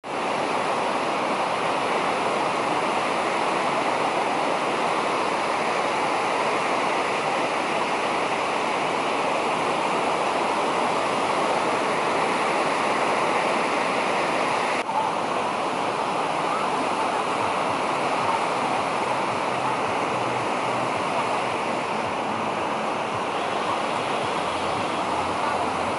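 Steady wash of sea surf breaking on the beach, with one short click about halfway through.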